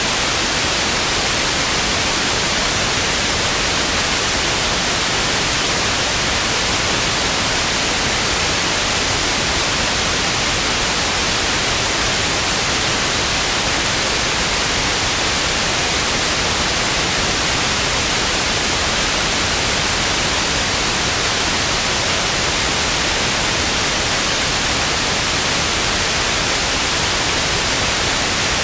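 Television static: steady, unbroken hiss with most of its weight in the upper range.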